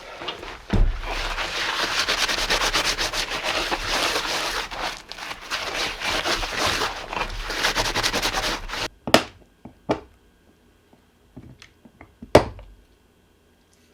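Dense crackling, rustling noise full of small clicks that cuts off suddenly about nine seconds in, followed by a few sharp knocks.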